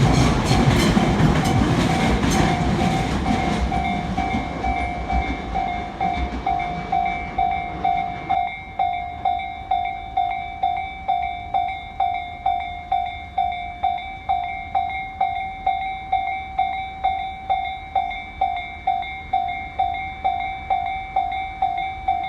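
Japanese railroad crossing bell ringing steadily at about two strikes a second while a train passes. The train's noise is loud at first, fades, and drops away about eight seconds in, leaving the bell ringing alone.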